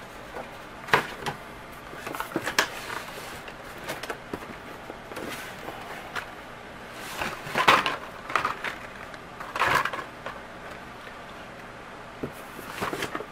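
Hot Wheels blister-card packages and a cardboard shipping case being handled: scattered rustles and light plastic-and-cardboard knocks, with the loudest knocks a little under 8 and 10 seconds in.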